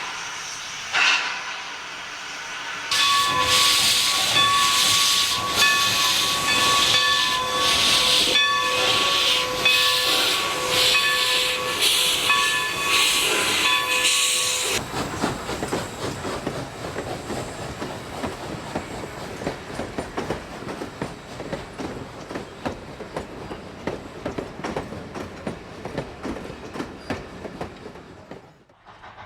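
Steam locomotive sound: hissing steam, then a chime whistle blown in a series of blasts over escaping steam for about twelve seconds. After that the train runs on with a rapid clatter that fades away near the end.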